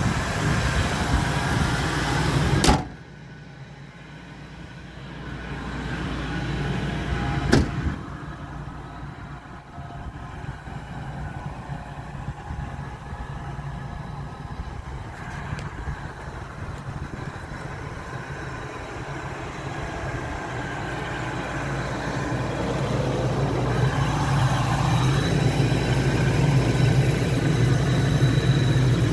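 Ford 5.4-litre V8 idling steadily. About two and a half seconds in, a sharp slam, after which the engine is much quieter, fitting the hood being shut over it. A second sharp knock follows about five seconds later, and the idle grows louder again near the end as the microphone goes under the truck.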